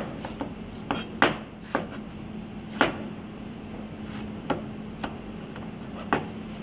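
Chef's knife slicing through an apple and knocking down onto a plastic cutting board: a series of sharp, irregularly spaced knocks, with a faint steady hum behind.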